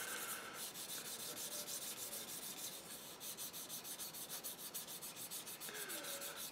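Sanding stick rubbed in quick back-and-forth strokes over the primed plastic body shell of a Tamiya Nissan Skyline model kit: a faint, rapid scratchy rubbing. It is knocking back high points and rough spots in primer that dried before it could self-level.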